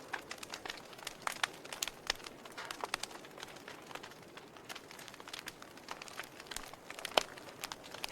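Wood fire burning in a fireplace, crackling with irregular sharp pops over a soft hiss; one louder pop about seven seconds in.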